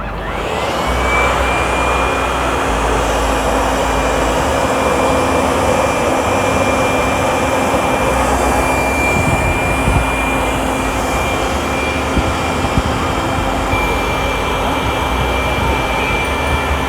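A powerful electric air blower spinning up. Its whine rises over the first second, then it runs steadily with a high whine over a loud rush of air.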